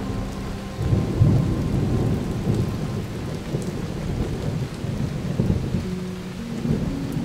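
A low, uneven rumble with a rain-like hiss, like distant thunder. It replaces held musical notes about a second in, and the notes come back near the end.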